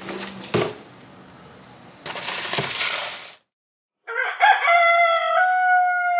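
A rooster crowing once, a long call starting about four seconds in and ending on a falling note. Before it there is a stretch of hissy background noise with a louder rush of noise, then a moment of dead silence.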